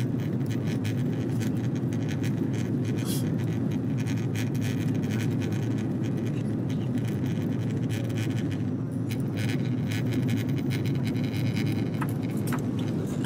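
Steady low rumble of engines and airflow inside a jet airliner's cabin, with faint light ticks and rattles on top, as the aircraft descends toward landing.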